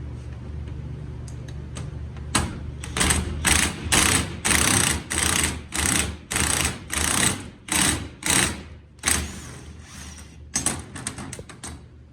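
Hand ratchet being cranked in repeated strokes, a burst of ratchet clicking on each return swing about twice a second, then a few short quicker strokes near the end. It is tightening the bolt of a makeshift bolt-and-socket press that draws aluminum shifter bushings into their bracket.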